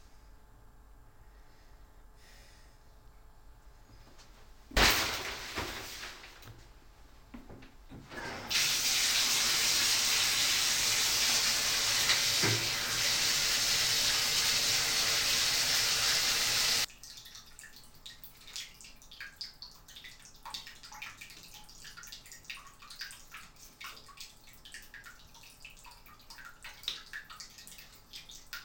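A sharp knock, then water running hard from a tap for about eight seconds before cutting off suddenly. After that come faint small ticks and rustles of photo prints being handled.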